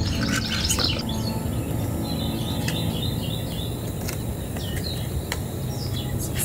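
Songbirds chirping in the morning chorus, many short, high calls overlapping, over a steady low rushing noise.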